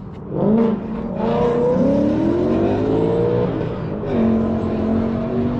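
V8 car accelerating hard. The engine note climbs steadily in pitch for a few seconds, breaks as it changes gear about four seconds in, and carries on at a steadier pitch.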